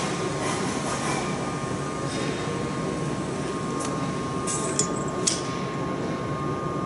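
Steady hum and hiss of factory machinery with a thin steady whine, and two sharp metallic clicks about half a second apart around five seconds in.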